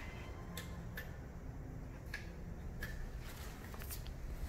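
Light, scattered clicks and taps over a low steady hum, from the speed-range levers and controls of a geared-head lathe being shifted.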